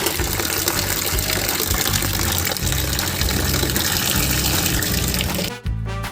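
Water gushing steadily, like a running tap or hose, cutting off abruptly about five and a half seconds in.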